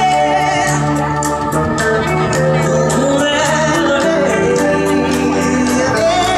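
Live band music: sustained organ-like keyboard chords over drums with a steady cymbal beat.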